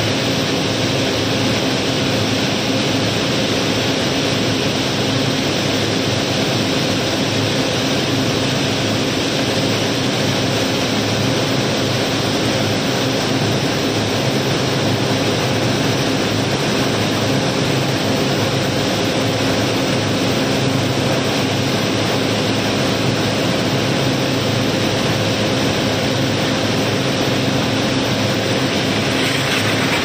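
Rounded river gravel pouring out of a barge's hold down a narrow chute, a steady rushing rattle of stones with a low hum under it.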